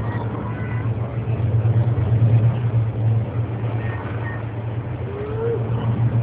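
Piston-engined WWII bomber aircraft droning in flight, a steady low engine drone that swells slightly a couple of seconds in.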